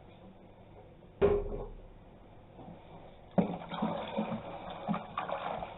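A single hard thump about a second in, then from about three seconds in a run of irregular knocks and clatter: containers and a stirring utensil being handled while hot homemade laundry soap is mixed with water.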